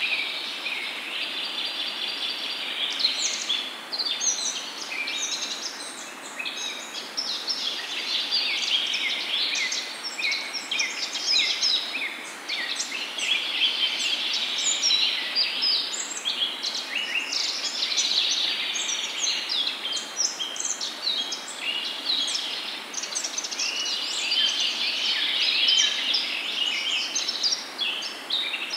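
Peyaju, lentil and onion fritters, deep-frying in hot oil: a steady, dense sizzling and crackling of many small pops.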